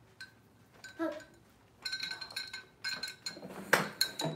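Paintbrushes clinking against a glass jar of water: a series of light taps that each ring briefly, clustered in the second half.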